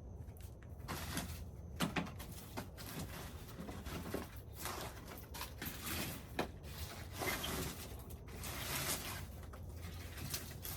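Handling noises: irregular rustling swishes with a few sharp knocks, as sweet potatoes and soil are moved about by hand.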